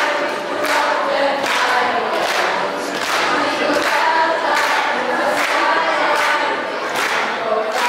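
A group of children singing together, with a steady beat of hand claps a little more often than once a second.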